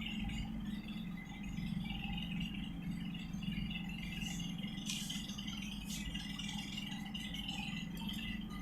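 Budgerigars chirping and chattering continuously over a steady low hum, with two clicks about five and six seconds in.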